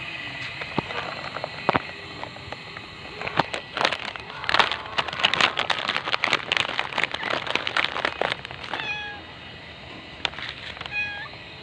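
A cat meowing briefly, twice near the end, after a few seconds of dense crackling and rustling.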